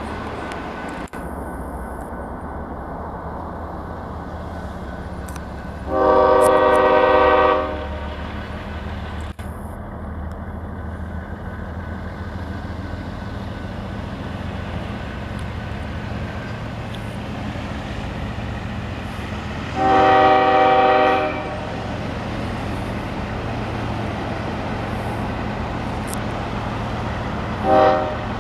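Union Pacific diesel locomotive's multi-chime air horn sounding for a grade crossing: two long blasts about fourteen seconds apart, then a short toot near the end. A steady low rumble of the locomotive diesels runs underneath.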